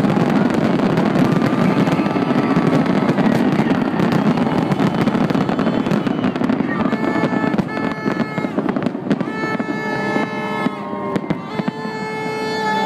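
Aerial fireworks crackling and popping densely, a near-continuous barrage. About halfway through, the pops go on beside a run of held, reedy tones that step between pitches.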